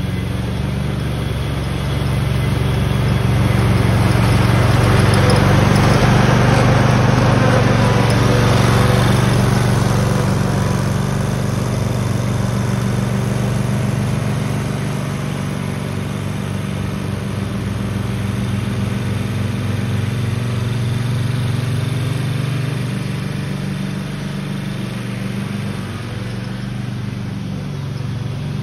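White Outdoor 50-inch zero-turn mower's engine running steadily as the mower drives by, louder for a few seconds early on and then easing off somewhat as it moves away.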